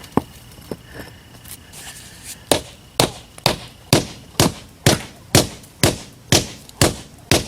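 Rubber mallet pounding a paver down into its sand-and-Portland-cement base: a few light taps, then steady, evenly spaced strikes about two a second.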